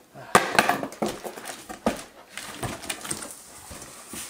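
Cardboard box flaps being pulled open and pushed back: a quick run of sharp knocks and scrapes in the first second, then scattered thuds and rustling of cardboard.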